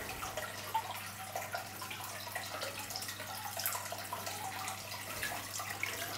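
Water trickling and dripping in the aquarium's opened rear filter chamber, quiet and uneven, with a faint steady low hum underneath.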